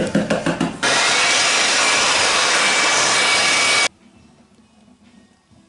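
A short run of rapid clicks, then a power tool giving a loud, steady rushing noise that cuts off abruptly about four seconds in, leaving faint room tone.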